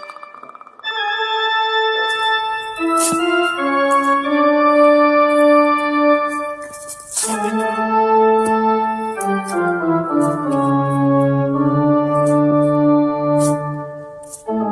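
Organ-like keyboard music: held chords that shift every second or two, starting after a brief pause, with a few sharp crashing hits along the way.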